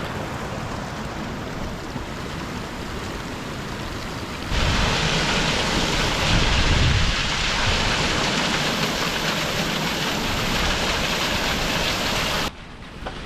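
Storm wind and rain, a steady rushing noise with low wind rumble on the microphone. It jumps louder about four and a half seconds in and drops away abruptly near the end.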